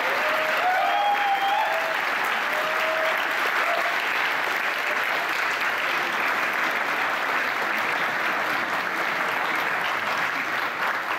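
Audience applauding steadily at the end of a tango performance, with the last held notes of the tango music dying away in the first couple of seconds.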